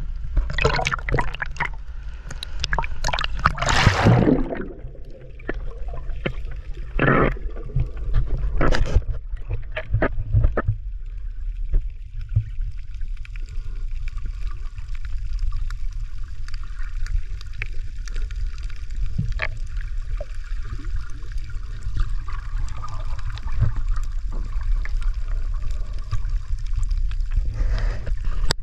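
Water sloshing and gurgling around a camera held at the surface of shallow surf, with a run of splashes in the first ten seconds or so. Then the sound turns to a steady, muffled underwater rumble with faint scattered clicks as the camera stays under.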